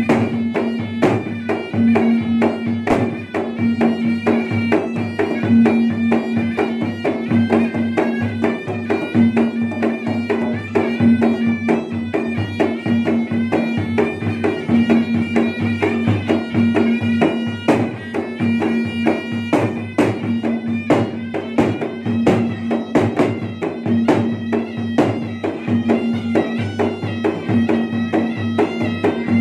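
Traditional Indonesian wedding drum ensemble: two long red double-headed barrel drums (gendang) beaten with hand and stick in fast interlocking strokes, under a small shawm playing a nasal, bagpipe-like melody over a steady drone.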